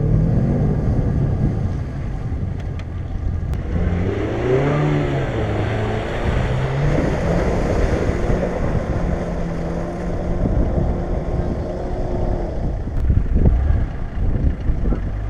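Jeep Grand Cherokee WJ engine revving up and down under load while driving off-road, its pitch rising and falling several times.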